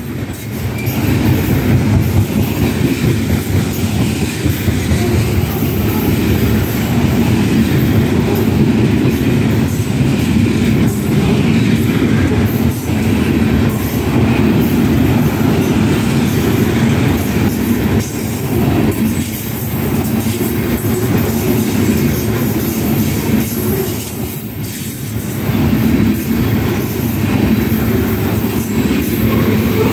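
Freight cars of a mixed manifest train rolling past close by at speed: a loud, steady rumble of steel wheels on rail with clacks over the rail joints.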